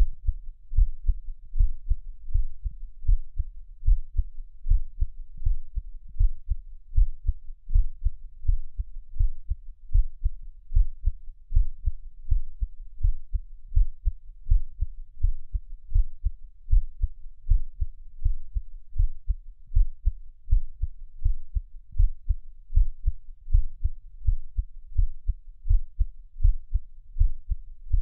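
Human heartbeat heard close up, a steady, regular rhythm of low, dull double beats (lub-dub), roughly one heartbeat a second.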